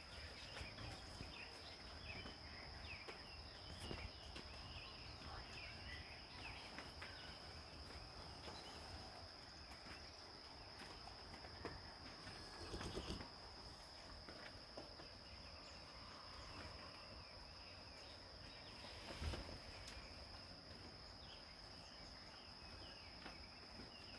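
Faint outdoor garden ambience: a steady, high insect drone with scattered bird chirps. There are a couple of soft bumps, a little before halfway and again later on.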